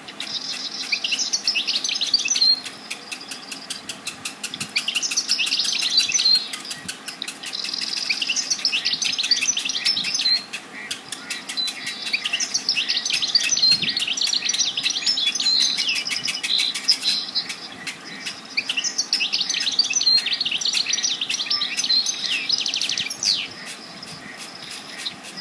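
Songbirds singing in repeated phrases of rapid, high chirps and trills, each phrase lasting a few seconds with short pauses between, over faint background hiss.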